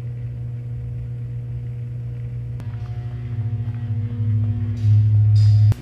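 A steady low hum. About two and a half seconds in it changes to a louder, pulsing hum that grows stronger and cuts off suddenly near the end.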